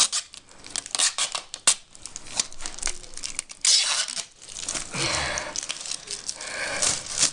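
Scotch Magic Tape being pulled off its roll and torn: a string of quick crackles and clicks with two longer tearing rasps, one about three and a half seconds in and one lasting a couple of seconds from about five seconds in, along with crinkling as the tape bunches up.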